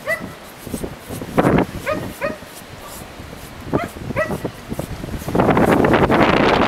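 A dog giving short, high yips, one and then two quick pairs, five in all. Gusty wind on the microphone comes in near the end.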